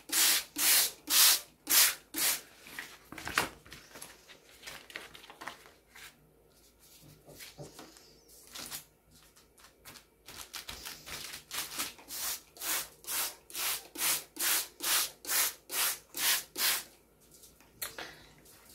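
Trigger spray bottle spritzing liquid onto paper in quick runs of short sprays, about two a second: a short run at the start and a longer one in the second half. In between, a quieter stretch of soft rustling as the wet paper is pressed down by hand.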